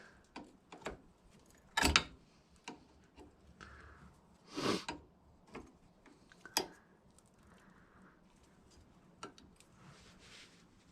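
Scattered metallic clicks and clinks of diagonal cutters working the cotter pin at an ATV's axle hub, straightening it out. The sharpest clink comes about two seconds in, with a longer scraping click near the middle and a few fainter ticks between.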